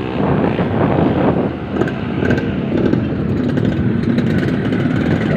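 Yamaha RX-King two-stroke motorcycle engine running under way, a loud, steady, pulsing exhaust note.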